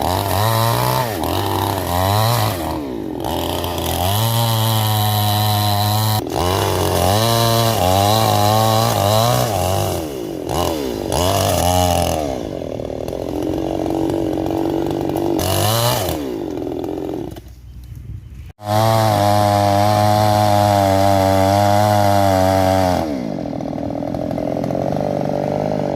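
Petrol chainsaw running, its engine note repeatedly rising and falling as it is revved and loaded. It briefly falls away about two-thirds of the way through, then runs high again before settling to a lower, steadier note near the end.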